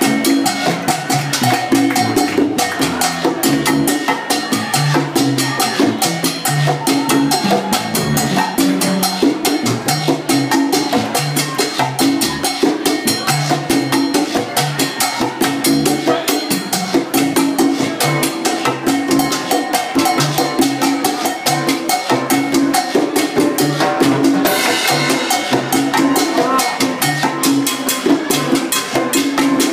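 Live salsa band playing an instrumental passage, with busy, even percussion over a repeating bass line.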